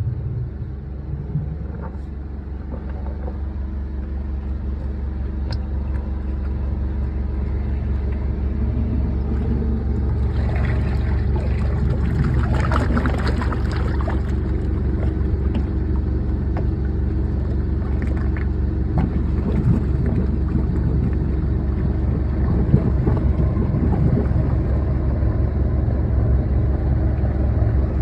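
An engine running steadily, a low rumble with a constant hum that slowly grows louder over the first several seconds.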